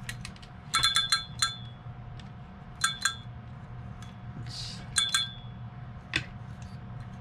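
Metal parts of a vintage Garcia Mitchell 300 spinning reel being worked by hand after reassembly: sharp metallic clicks with a brief ringing tone, in three quick clusters and a single click near the end.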